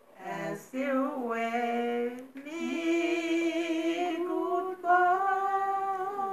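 Two elderly women singing together in short phrases, then long held notes through the second half.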